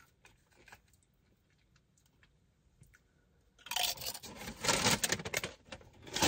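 Tortilla chips crunching and crackling. After a near-silent start with a few faint clicks, a dense run of crisp crackles begins a little past halfway.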